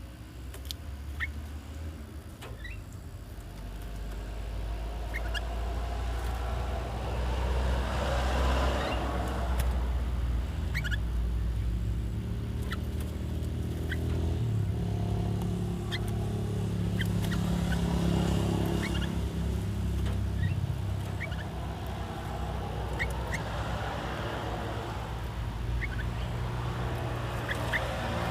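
Short, scattered chirps from caged bulbuls over the low rumble of motor vehicles, which swells twice as traffic passes.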